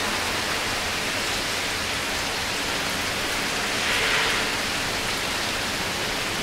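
Heavy tropical-storm rain squall pouring down steadily on a paved driveway and parked cars, swelling a little louder about four seconds in.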